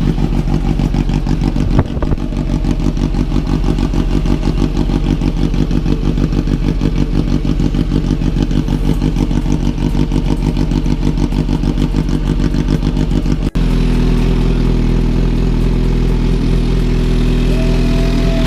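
Kawasaki Z H2's supercharged inline-four engine idling steadily, with even firing pulses. About three-quarters of the way in, the sound changes abruptly to a smoother, steadier hum.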